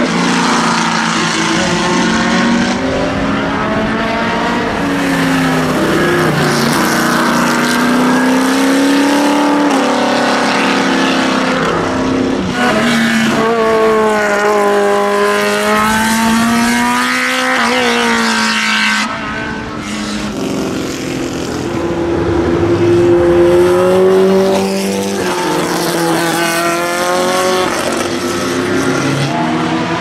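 Several historic sports-prototype race cars pass one after another, their engines revving up and down through the gears. Their tyres hiss through standing water on a wet track.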